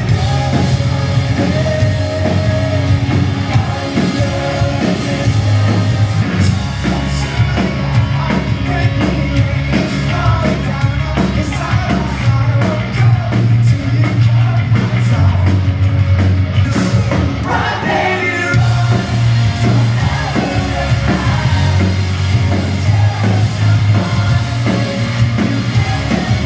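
Pop-punk rock band playing live through a concert sound system: male lead vocals over electric guitars, bass and drums.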